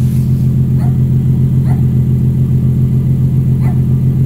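Infiniti G37's 3.7-litre V6 idling through an aftermarket ARK exhaust: a loud, steady, low, evenly pulsing exhaust note at the tailpipes.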